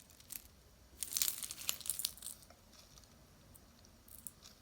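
Costume jewelry being handled and sorted by hand: light clinks and rustles, busiest about a second in, with a few more near the end.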